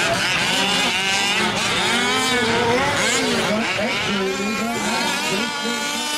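Several 1/5-scale RC trucks' small gasoline two-stroke engines racing at once, their overlapping whines climbing and falling as the drivers work the throttles.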